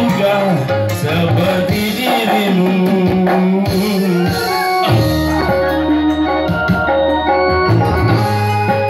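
Live electronic keyboard music played over a steady drum rhythm, with held chords and a melody line.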